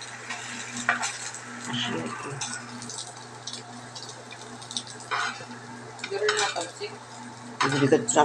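Spatula and fork scraping and knocking against a nonstick frying pan as patties sizzle in it, over the steady hum of an induction cooker. The loudest clatter comes near the end.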